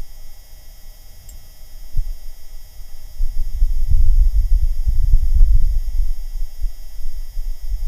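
Martian wind buffeting the Perseverance rover's microphone: a gusty low rumble that swells about three seconds in, over faint steady high-pitched tones.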